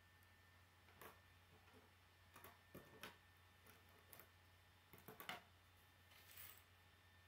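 A handful of faint clicks and taps of plastic K'nex pieces being handled and set down on a wooden tabletop.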